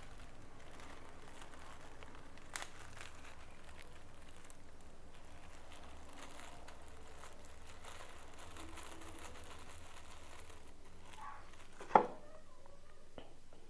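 Faint rustling and crinkling of hands working the chilies into a bowl of rujak, with a small click a few seconds in and a single sharp knock near the end.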